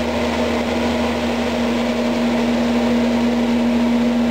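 Haas SL-10 CNC lathe running with its spindle spinning at speed: a steady hum with a hiss over it.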